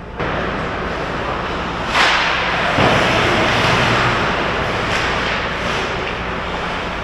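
Hockey skate blades scraping and carving on the ice close by, with a sharp, louder scrape about two seconds in and continued skating scrapes after it.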